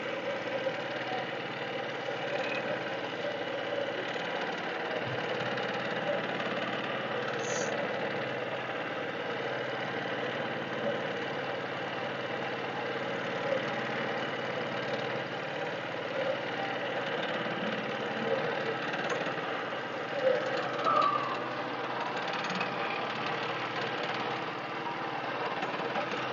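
Small boat engine of a motor canoe running steadily at constant speed.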